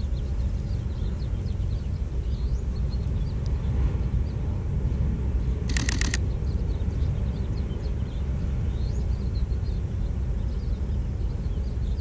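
Outdoor ambience: a steady low rumble with many faint, short, high chirps scattered through it. About six seconds in comes a brief burst of rapid clicks.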